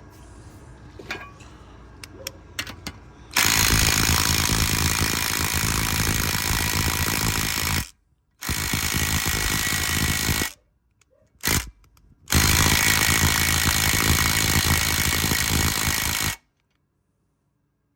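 Hyper Tough 12 V brushed cordless impact driver hammering in three long bursts, with a brief blip between the second and third, as it struggles against a bolt set at 120 foot-pounds. A few light clicks come before the first burst.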